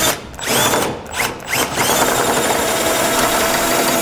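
Power drill with a 1/2-inch bit enlarging a bolt hole through a steel base plate and frame rail: about four short bursts of the trigger, each spinning up, then running steadily from about two seconds in.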